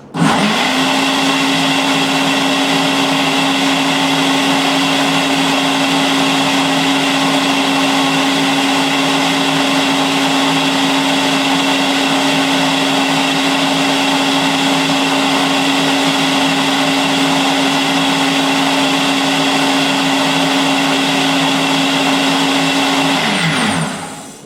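Nutri Ninja Auto IQ personal blender motor spinning up and running loud and steady, blending ice cubes and liquid, then winding down and stopping near the end as its automatic program finishes.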